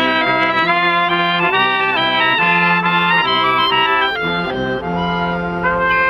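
Small street wind band playing a traditional Sicilian Christmas tune: clarinet, alto saxophone and trumpet carry a stepwise melody over a repeated low euphonium note.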